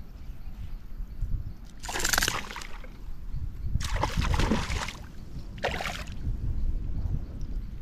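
Water splashing and sloshing in three short bursts, about two, four and six seconds in, over a steady low rumble.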